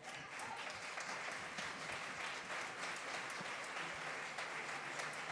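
An audience applauding, starting suddenly and keeping up at a steady level.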